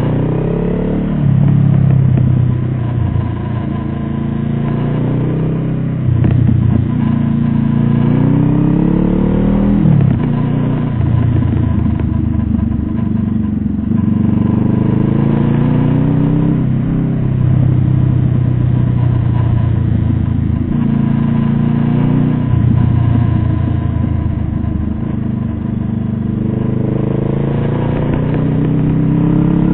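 Motor vehicle engine pulling through its gears, its pitch rising over a few seconds and dropping back at each shift, several times over, with steady road noise.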